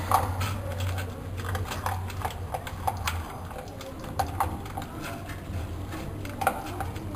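Dog rummaging with its nose among stored bottles and clutter for hidden kibble: irregular small clicks and knocks over a steady low hum.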